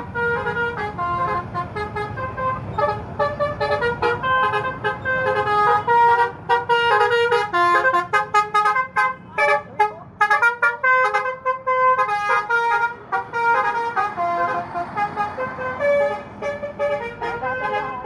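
Bus 'basuri' telolet horn, a multi-tone air horn, playing a fast tune of short stepped notes without a break.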